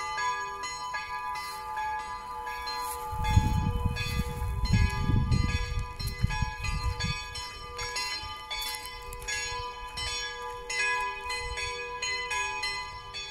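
Church bells ringing, struck over and over several times a second with a long steady hum carrying beneath the strikes. A low rumble joins in from about three to seven seconds in.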